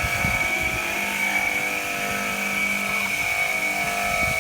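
Full Boar 800 W wet tile saw running steadily with a high motor whine, its diamond blade being pushed through a tile.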